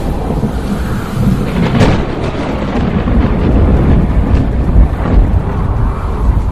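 Rolling thunder over steady rain: a loud, continuous low rumble with a few brief swells, from the film's soundtrack.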